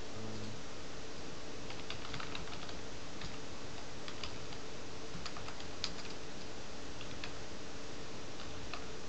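Computer keyboard typing: scattered, irregular keystrokes over a steady background hiss and faint hum.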